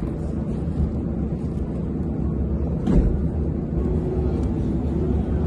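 Steady low rumble of background noise, with a single short knock about three seconds in.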